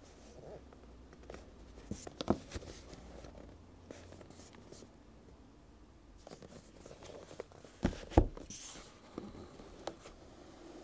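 A cardboard lens box handled in the hands: the card rustles and scrapes, with a few sharp knocks, the loudest about two seconds in and a double knock about eight seconds in, followed by a brief scraping hiss.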